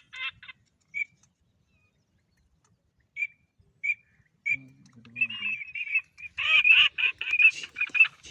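Birds calling: a few single short calls spaced about a second apart, then a quick run of louder repeated calls over the last three seconds.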